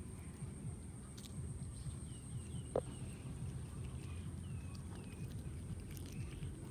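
Cats chewing raw fish close up, a dense irregular mouthing and crunching low in pitch. A few faint bird chirps, one brief sharp click a little under three seconds in, and a steady high-pitched whine sit behind it.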